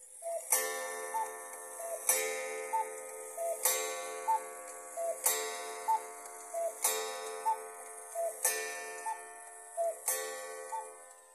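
1961 Majak (Mayak) cuckoo clock striking twelve: a two-note cuckoo call, high then low, each time followed by a ringing metallic strike, repeating about every one and a half seconds, seven times.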